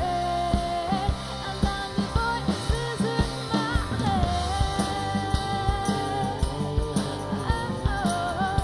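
Rock band playing live: a steady drum-kit beat with electric guitar and bass guitar, and a long held melody note in the middle.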